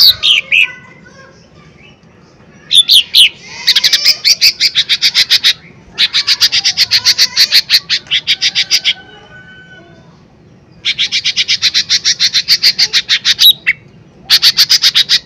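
A lesser green leafbird (cucak ijo mini) singing loudly in bursts of rapid repeated chattering notes, about ten a second. Each burst lasts two to three seconds, with short pauses between them and a few sharp slurred whistles before the first long burst.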